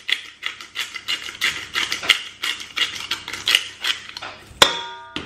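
Hand-twisted pepper grinder cracking black pepper over a steel bowl, a rhythmic dry crunching of about three strokes a second. Near the end there is one sharp metallic clink with a short ring.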